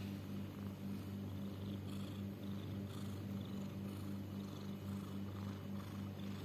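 Domestic cat making a steady, low, rumbling purr-like breathing sound, which the owner wonders may be snoring, wheezing or trouble breathing.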